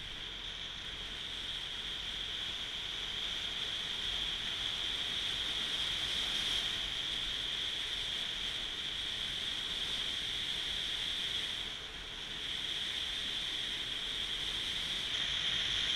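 Steady rushing wind and road noise from a motor scooter riding along a gravel road, with a constant high hiss over it. The noise dips briefly about twelve seconds in.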